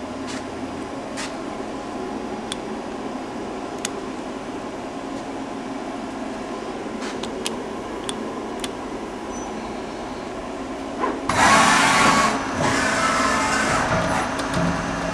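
YCM Supermax vertical machining center running a demo program: a steady machine hum with a few light clicks. About eleven seconds in, a loud rushing noise cuts in and runs for about three seconds, briefly dipping partway through.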